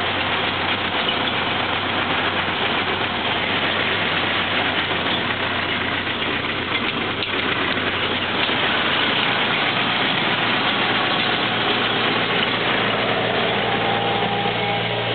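1930 Ford Model A's four-cylinder flathead engine idling steadily.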